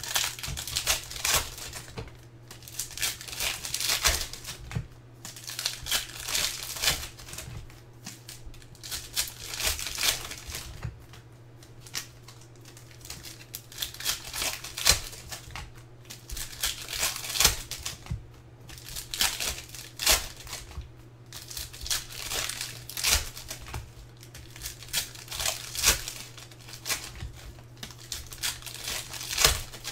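Foil wrappers of 2017-18 Select basketball card packs being torn open and crinkled by hand, in repeated bouts of crackling every couple of seconds.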